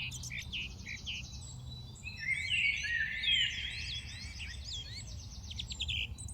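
A flock of birds chirping and calling together: many overlapping short chirps and fast trills, busiest in the middle, over a low steady background rumble.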